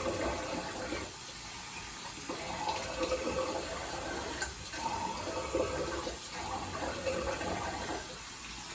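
Bathroom tap running into a sink, with uneven splashing as water is scooped up to rinse shaving lather off the face.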